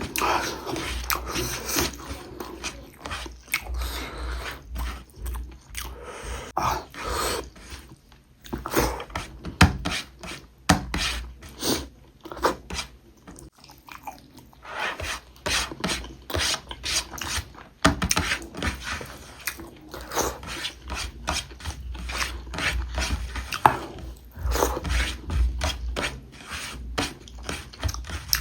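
Close-miked eating: chewing pork ribs and rice, with many irregular mouth clicks and smacks.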